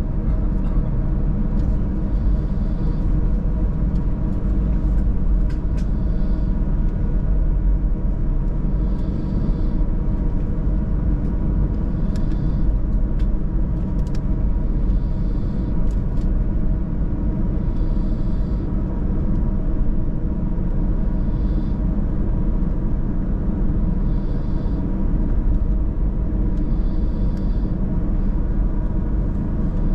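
Airbus A320 cabin noise from a rear seat: a steady, loud rumble of engines and airframe with a few steady tones in it, and a faint light rattle about every three seconds.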